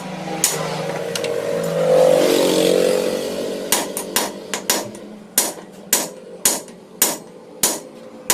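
Sharp hammer blows on metal, about two a second through the second half, typical of knocking apart the crankcase halves of a Honda Supra X125 engine. Earlier a vehicle engine passes, loudest about two seconds in.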